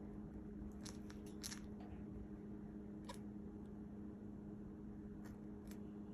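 Cockatiel hiccuping: short, sharp clicks, a quick cluster of three or four about a second in, a single one around three seconds and two more near the end, over a steady low hum.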